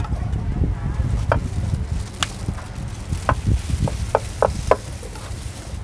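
Scattered clicks and knocks of utensils and plastic containers being handled at a street-food salad stall, over a steady low rumble of market background and wind, with three quick short clinks about four seconds in.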